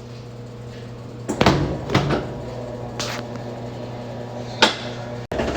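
Whirlpool washing machine running with a steady low hum, broken by four irregular knocks. This is the noise from down below that the machine was brought in for, though it still washes fine.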